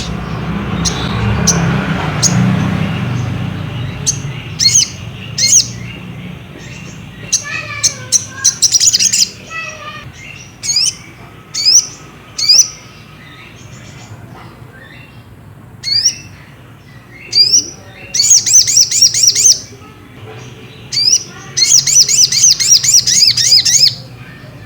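Crimson sunbird (sogok ontong) calling: scattered sharp, high chirps, then fast chattering trills in two long runs in the second half. A low rumble sits under the first few seconds.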